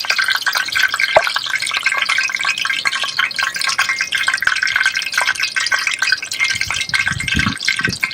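Hot cooking oil sizzling and crackling in a pot, with chopped scotch bonnet pepper frying in it to flavour the oil.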